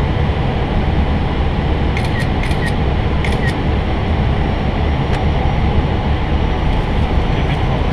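Steady cockpit noise of an Airbus A320 on approach: an even rush of airflow and engine rumble, deepest at the low end, with a few faint clicks about two to three and a half seconds in.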